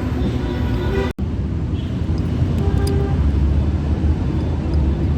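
Steady low rumble of background vehicle noise, broken by a brief dropout about a second in, with faint music underneath.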